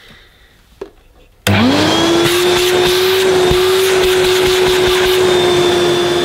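1984 Hoover Portapower S1126 compact vacuum cleaner switched on about a second and a half in: its 800-watt motor spins up within a fraction of a second to a steady whine and runs at full speed with the hose open.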